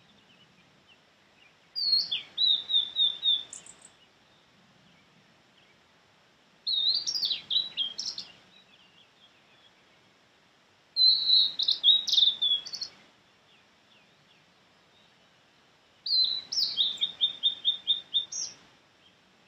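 Male blue-and-white flycatcher singing: four phrases about five seconds apart, each about two seconds long. Each opens with a few high whistled notes and ends in a quick run of short repeated notes.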